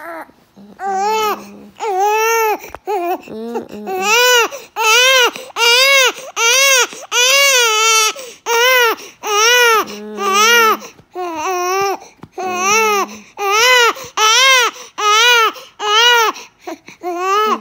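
Baby crying. A few short whimpering cries at first, then a steady rhythmic run of wails, about one and a third a second, each rising and falling in pitch.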